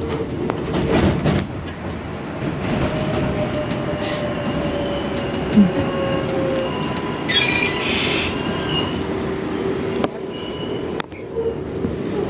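R142A subway train running along open track, heard from inside the car: a steady rumble of wheels on rail, a few sharp clicks over rail joints, and thin high wheel squeals, strongest about two-thirds of the way through.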